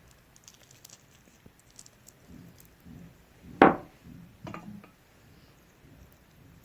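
Kitchen handling sounds as dried figs are worked by hand, soft small thuds and rustles, with a sharp knock about three and a half seconds in and a smaller one about a second later.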